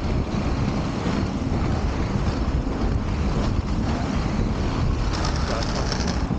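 Wind buffeting the microphone over the rolling hiss of inline skate wheels on asphalt, with a brighter hiss for about a second near the end.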